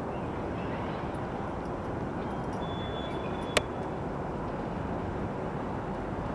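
Steady rumble of a train running along the line, heard from a distance. There is one sharp click about halfway through.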